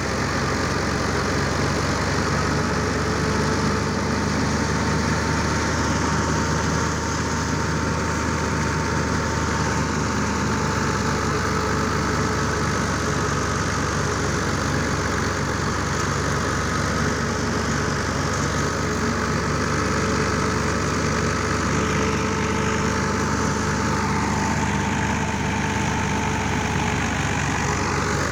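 Tractor diesel engine running steadily under load, driving a wheat thresher through its shaft. The thresher hums with a few steady whining tones over an even rush of straw and chaff passing through it.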